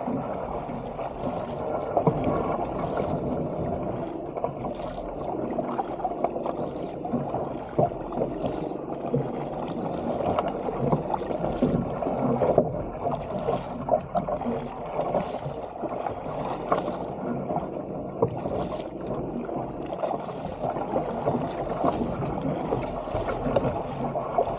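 Sea water splashing and gurgling steadily against the hull of a 475 fishing kayak and around its paddle blades as it is paddled through choppy water, with small uneven splashes throughout.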